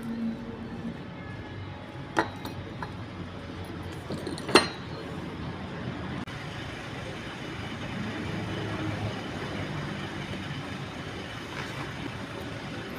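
Two sharp clinks about two and a half seconds apart, the second louder, over a steady background rumble.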